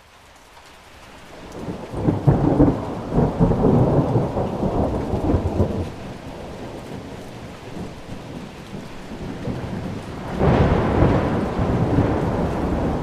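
Thunderstorm: steady rain with two long rolls of thunder, the first swelling in over the first couple of seconds and rolling for about four seconds, the second breaking about ten seconds in.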